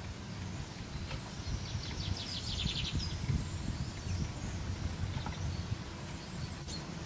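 Steady low rumble of outdoor ambience, with a small bird giving a quick trill of rapid high notes a couple of seconds in.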